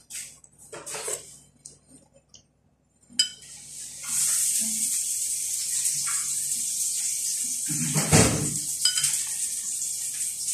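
A metal spoon clinking and scraping in a glass jar of tea, with a sharp click a little after three seconds and a knock near eight seconds. A steady high hiss runs under it from about four seconds in.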